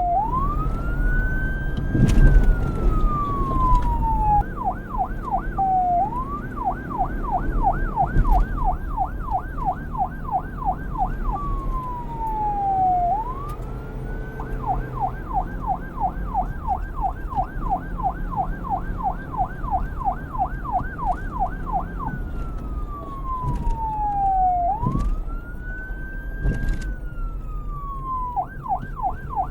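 Police car siren cycling between wail and yelp: slow rising and falling sweeps alternate with long stretches of fast yelping at about three to four warbles a second, over a low rumble.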